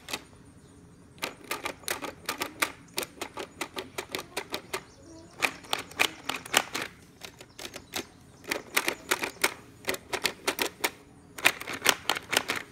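Plastic keys of a toy piano clacking as they are tapped in quick runs of clicks, several a second, with short pauses between the runs.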